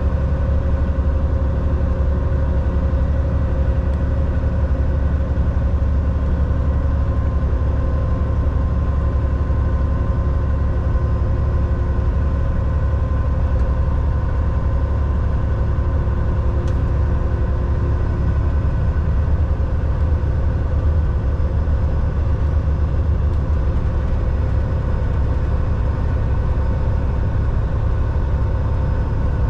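Semi truck running at a steady engine speed: a loud, even low rumble with a constant engine drone that does not rise or fall.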